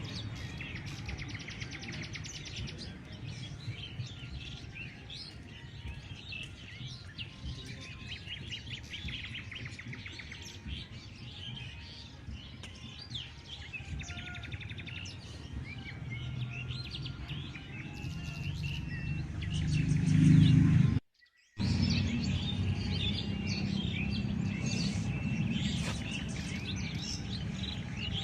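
Many birds chirping and calling, with quick trills and short repeated notes, over a low steady rumble. The sound cuts out briefly about two-thirds of the way through, then the chirping resumes.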